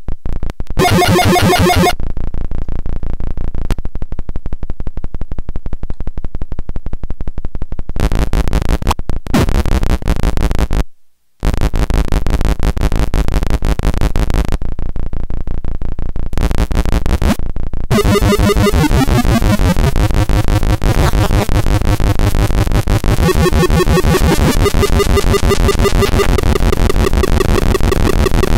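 Homemade circuit-bent noise sequencer putting out harsh, rapidly pulsing chiptune-style electronic noise that changes abruptly as it is played. For several seconds early on it thins to fast clicking over a low hum, then fills back in, and it cuts out for a moment about eleven seconds in.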